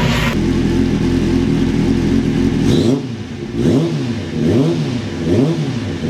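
1996 Suzuki GSX-R750 SRAD's inline-four engine at full song, holding a steady note for the first few seconds. Then the note drops and the pitch swings up and down about once a second.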